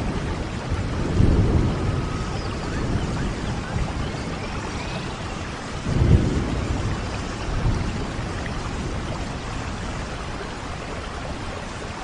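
Steady rain with low rolls of thunder, swelling about a second in and again around six seconds in.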